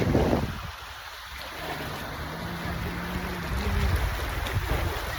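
Sea water sloshing, with wind buffeting the microphone; a loud gust at the start dies down within the first second, and a steady low hum runs for about two seconds in the middle.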